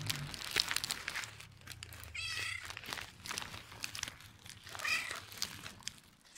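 Black-and-white cat meowing twice: a longer, high meow about two seconds in and a shorter one about five seconds in. Footsteps crunch on gravel between the calls.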